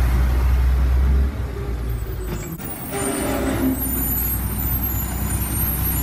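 Diesel garbage truck engine running. About a second in, its deep drone falls away, then it settles back to a steady, lower running note.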